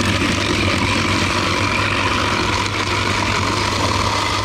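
Electric ice shaver running steadily, its blade grinding ice cubes that are pressed down by the hand lever. A constant motor hum under a loud grinding hiss.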